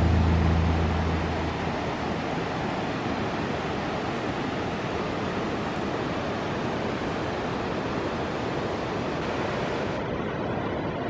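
The last low notes of a guitar piece fade out in the first second or two, leaving a steady rushing noise with no distinct events. The highest part of the hiss drops away about ten seconds in.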